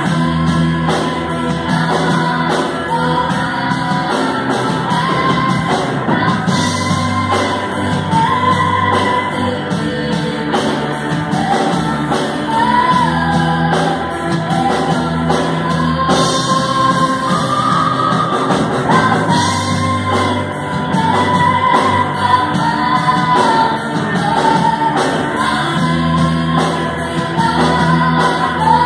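Live church worship band playing a song: a woman singing the lead over electric guitars, bass, keyboard and a drum kit keeping a steady beat.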